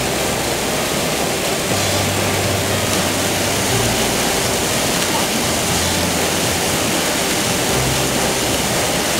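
Steady rush of churning whitewater pouring through a river hole, where a freestyle kayak is surfing.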